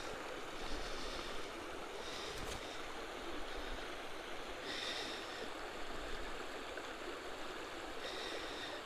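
Shallow creek water running over rocks and a small riffle: a steady rushing.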